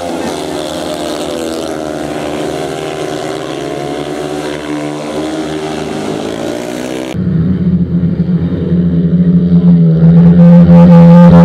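Speedway motorcycles' single-cylinder methanol engines racing, their pitch rising and falling through the bends. About seven seconds in the sound cuts abruptly to a louder, steadier low engine drone.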